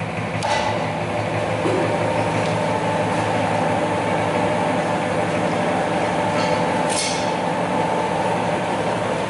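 SAFO DZJB 250 long-belt sander running with its belt drum turning: a steady mechanical hum and drone that grows a little louder over the first couple of seconds after the speed/direction switch is turned, then holds steady.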